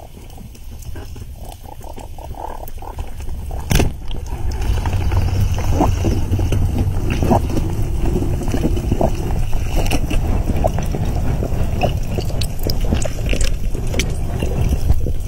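Underwater water noise on a diving camera: a low rushing, gurgling wash with scattered crackles that grows louder about four seconds in. A single sharp knock comes just before the rise.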